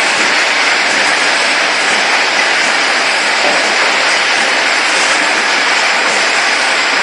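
Automatic bottle filling and capping line running: a loud, steady, dense mechanical noise with no clear beat.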